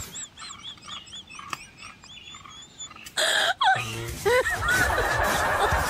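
Added comedy sound effects: quick high chirps, then a loud falling whistle-like glide about three seconds in, followed by a laughing sound effect.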